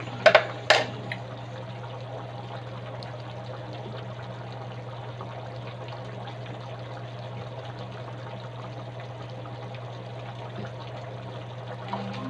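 A pan of pork pochero stew simmering with a steady bubbling hiss over a constant low hum. About half a second in, two sharp clicks are the loudest sounds.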